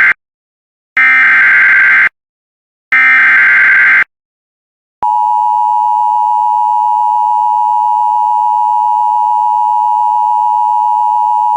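Emergency Alert System SAME header: two one-second bursts of screeching digital data tones, about a second apart. After a second of silence, a steady attention tone starts about five seconds in and holds.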